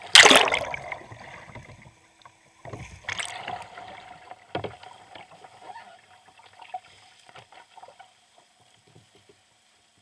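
Kayak rolling over in pool water: a loud splash at the start as it capsizes, a second rush of splashing about three seconds in as it rolls back upright, then fainter splashes of paddle strokes in the water.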